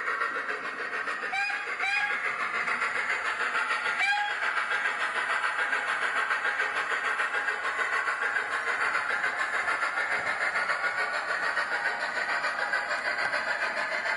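Soundtraxx ECO-21PNEM UK steam sound decoder in a Hornby P2 2-8-2 model locomotive, playing steady steam exhaust chuffs through the model's small speaker. Three short whistle toots sound about one and a half, two and four seconds in.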